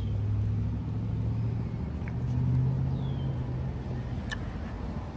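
Steady low hum of a motor vehicle engine running, its pitch shifting up slightly about two and a half seconds in, with a single sharp click near the end.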